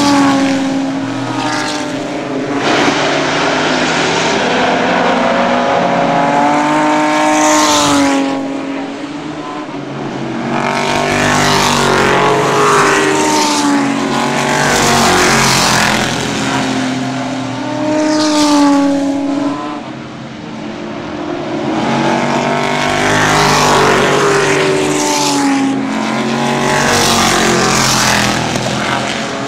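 Race car engines at speed, several cars passing one after another, each engine note rising and falling in pitch as it goes by, with loud swells between quieter moments.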